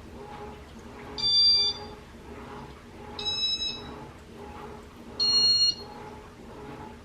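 Three loud electronic beeps, each about half a second long and spaced about two seconds apart, over a faint steady background hum.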